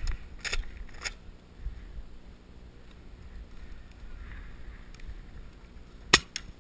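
A few sharp clicks or knocks over a low, steady rumble: two about half a second and a second in, then a loud one about six seconds in with a smaller one just after.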